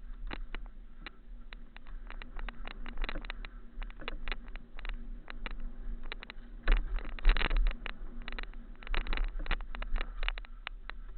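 Mountain bike clattering over a rocky trail: fast, irregular knocks and rattles from the bike over the rocks, over a steady low rumble. The loudest clatter comes about seven seconds in and again around nine to ten seconds.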